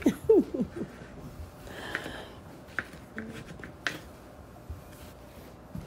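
Kitchen knife cutting through watermelon flesh and rind on a plastic cutting board: a soft crunch about two seconds in, then a few sharp clicks of the blade meeting the board.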